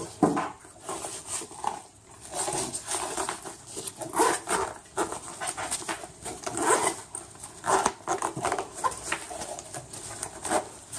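A fabric camera bag being opened and handled, with irregular rustling and scraping of its material and padded inside dividers.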